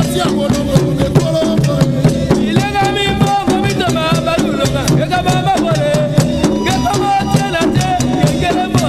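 A song with a singing voice over a dense, fast shaker or rattle pattern and a steady, repeating bass beat.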